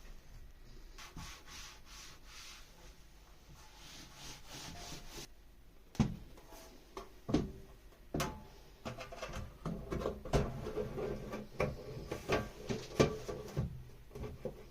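Handling noise of someone working at a bench: light rubbing and scraping at first, then from about six seconds in a run of irregular sharp clicks and knocks of hard parts being handled and set down.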